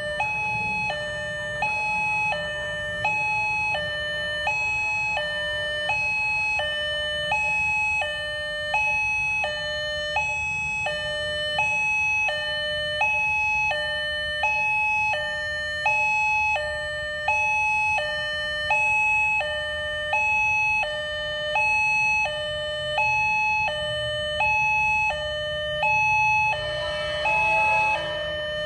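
Railway level-crossing warning alarm sounding with the barriers down: an electronic two-tone signal stepping back and forth between a higher and a lower pitch, each held about half a second, over a low steady rumble. A short noisy burst cuts in near the end.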